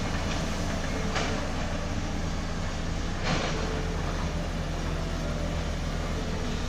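Excavator's diesel engine running with a steady low rumble. Two short noisy swishes come about one and three seconds in.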